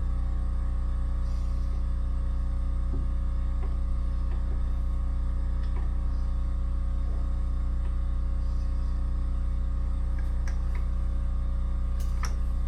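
Metal lathe running steadily while boring a motorcycle cylinder, a constant even hum with a few faint ticks.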